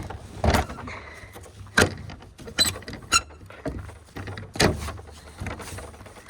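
Metal farm gate being worked open: a series of sharp clanks and knocks, several with short high squeaks, from a gate stiff with frost.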